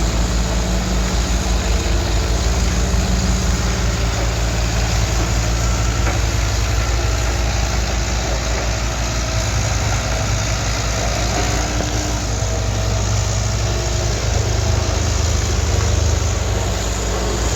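Road roller's diesel engine running steadily with a heavy low rumble while compacting the road base.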